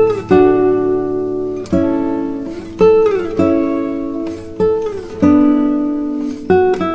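Background music: an acoustic guitar picking notes and chords, a new note plucked about every second and fading away, with a few notes sliding down in pitch.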